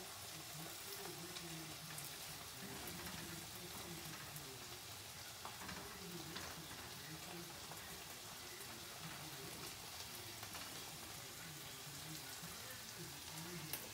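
Faint, steady sizzle of food cooking in skillets on an electric stove, the sloppy joe meat and the buns warming, with a few light clicks as the buns are handled in the pan.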